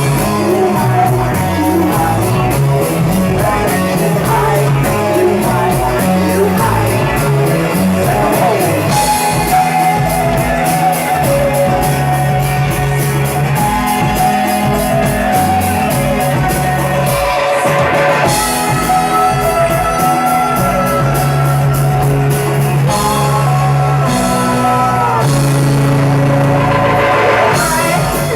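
Live rock band playing loud and steady: drums, bass line and guitar.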